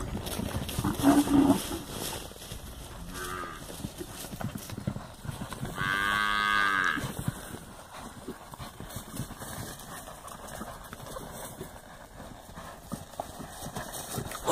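Cattle mooing: a short call about a second in, another around three seconds in, and one long moo whose pitch rises and falls about six seconds in. Low thuds from hooves on dirt run underneath.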